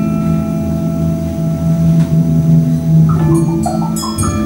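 Percussion ensemble playing: a held low roll with ringing sustained notes above it, then a flurry of struck bell and mallet notes about three seconds in.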